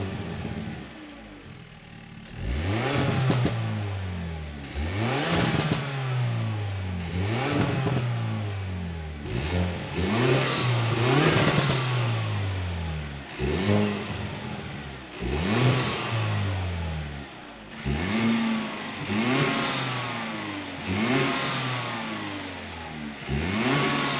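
Hyundai Elantra N's turbocharged 2.0-litre four-cylinder, breathing through an SXTH Element cold air intake, revved from idle again and again: about a dozen blips, each rising sharply in pitch and falling back to idle.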